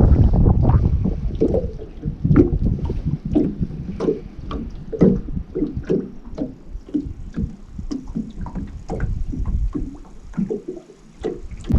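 Small waves lapping and slapping against the hull of a fishing boat, in short irregular slaps about twice a second. Low wind rumble on the microphone for the first second or so.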